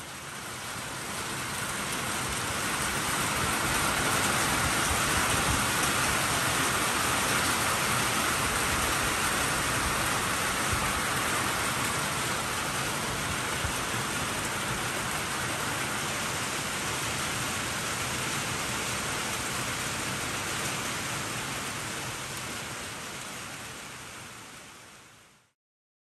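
A steady, even hiss of noise with no clear pitch or rhythm, fading in at the start and fading out near the end.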